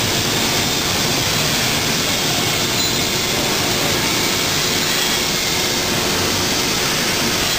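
Steady, even noise of heavy machinery running in a steel fabrication shop, with a faint steady hum under it.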